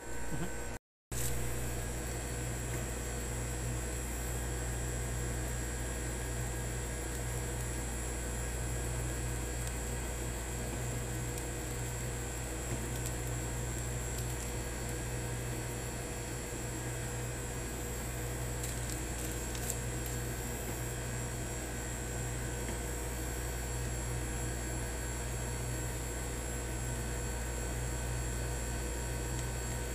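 Steady low electrical hum with faint thin higher tones, unchanging throughout.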